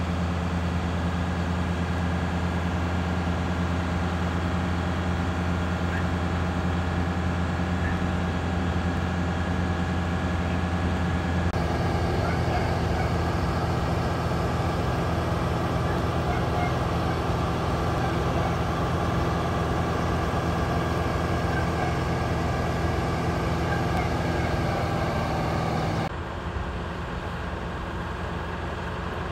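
Vintage MCI highway coach's diesel engine idling steadily. The sound changes abruptly about a third of the way in and again near the end.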